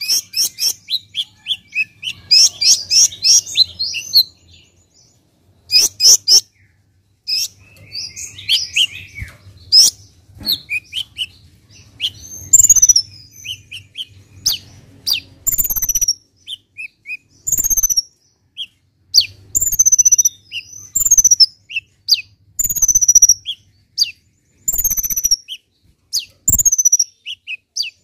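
Caged male copper-throated sunbird (kolibri ninja) singing: a fast run of high twittering chirps at first, then after a pause a series of high, down-slurred whistled notes about once a second. A few short sharp knocks come in among the notes.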